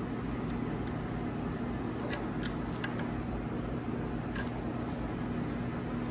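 Faint, scattered metallic clicks of a 10 mm wrench working the small nuts on a distributor's breaker plate, over a steady low hum.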